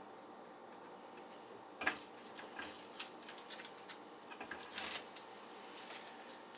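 Rustling and crinkling of small plastic and paper pieces being handled, with a few short, sharp crackles, the loudest about 2, 3 and 5 seconds in.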